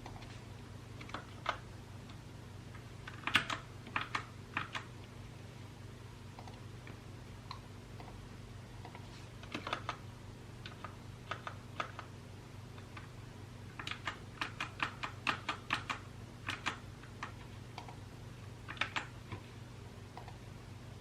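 Typing on a mechanical keyboard in irregular short bursts of key clicks, with the fastest run of keystrokes about two-thirds of the way through. A faint steady low hum lies underneath.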